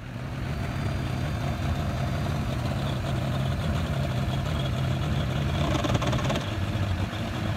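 Bass boat's outboard motor idling with a steady low hum as the boat is driven slowly onto its trailer.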